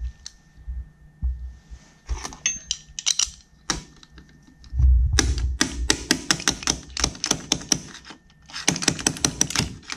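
Quick runs of light metallic clicks and rattles as a jet ski piston and its wrist pin are handled on a steel workbench, with a dull bump about halfway through. The clicking is densest in the second half.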